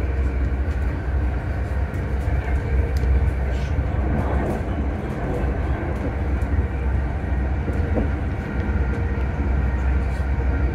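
Cabin sound of a ScotRail Class 385 Hitachi electric multiple unit: a steady low rumble with a set of constant whining tones from the traction motors and their inverters, holding one pitch throughout.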